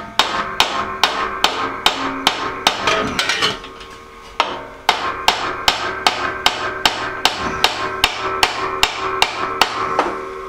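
Hammer blows on the gearbox shaft of a Harbor Freight horizontal metal-cutting bandsaw, knocking the shaft out of its housing. Quick, regular strikes, about two or three a second, each with a short metallic ring, with a brief pause about three and a half seconds in.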